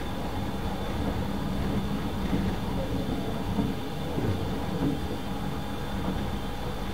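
Steady running noise heard inside a moving 24 series sleeper coach: a low rumble of the wheels on the rails, with a faint steady hum over it.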